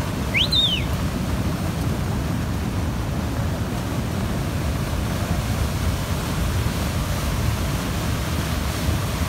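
Muddy flash-flood water rushing and churning, a steady loud rush with a deep rumble. About half a second in, a single short high chirp rises and falls.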